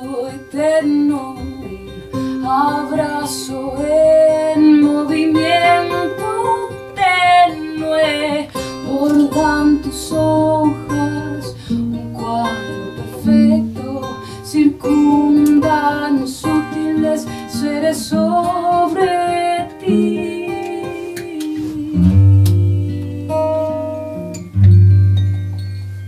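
Acoustic folk song played live: a woman singing over two acoustic guitars and a plucked double bass. From about 22 seconds in, deep double-bass notes stand out as the music dies away.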